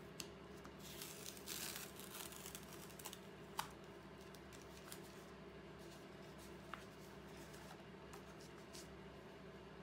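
Masking tape being peeled off the edge of paper: a papery rustle about a second in, then a few light clicks, over a faint steady hum.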